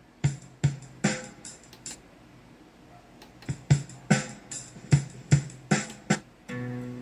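Music: a sparse run of separate drum hits, each with a short ringing tail. Fuller sustained music comes back in near the end.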